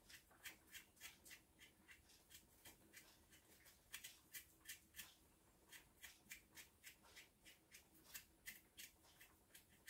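Kitchen knife scraping the skin off small potatoes: quick, faint scraping strokes, about three a second, with short pauses between potatoes.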